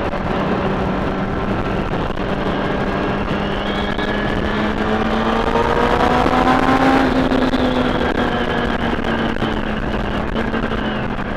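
Kawasaki ZX-6R inline-four sport bike engine running under way, with heavy wind noise. The engine note climbs for a few seconds midway as the bike speeds up, then settles back to a steady cruise.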